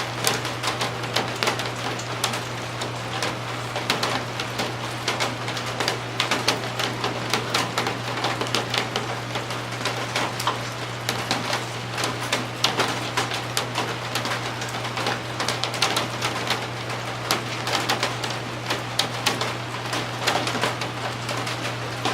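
Rain falling, with dense, irregular drops ticking on a hard surface close by, over a steady low hum.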